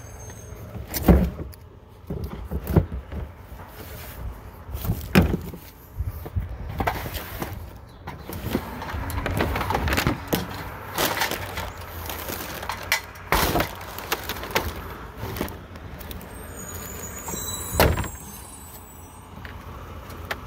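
Refuse truck at work: a low engine rumble under irregular loud bangs and clatter, the sharpest about a second in, about five seconds in and near the end.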